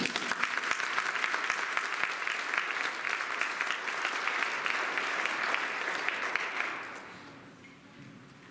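Congregation applauding, many hands clapping together, fading out about seven seconds in.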